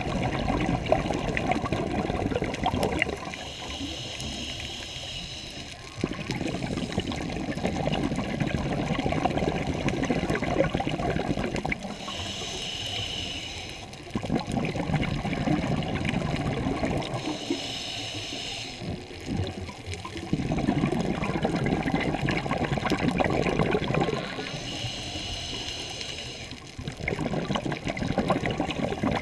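Scuba diver breathing underwater: long rushes of exhaled bubbles, about five of them every few seconds, each followed by a shorter, quieter hiss of inhaling through the regulator.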